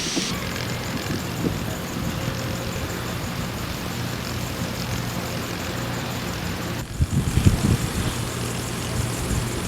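Storm wind and rain hiss over a steady low hum. From about seven seconds in, gusts of wind buffet the microphone.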